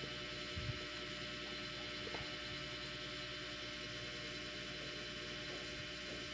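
Steady low electrical hum with a hiss of room noise, and one soft knock about half a second in.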